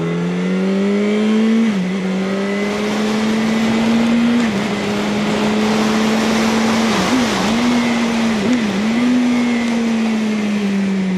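Yamaha R1 inline-four engine pulling hard, its pitch climbing over the first two seconds and then holding high. Revs dip briefly and recover about six times, with rushing wind noise rising toward the middle.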